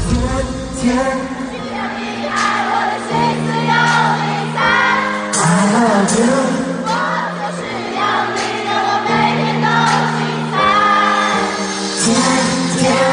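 Live pop concert music heard from the audience: held keyboard chords that change every second or two, with singing over them. The heavy bass beat drops out just as it begins.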